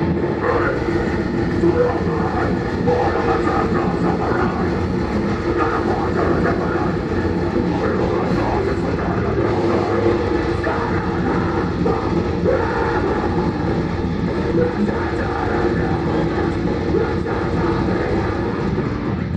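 A deathcore band playing live at full volume: distorted electric guitars and fast, dense drumming blend into an overloaded wall of sound.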